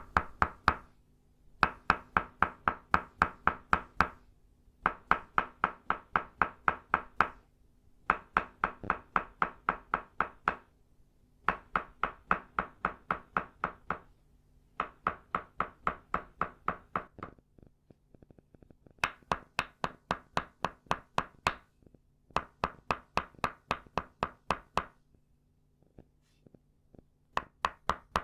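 Tok sen massage tools, an itaúba-wood mallet striking an itaúba-wood peg, tapping in quick runs of hollow wooden knocks, about six a second, each run lasting two to three seconds with short pauses between. About two-thirds of the way through comes a softer run of light taps, and a faint low hum sits underneath throughout.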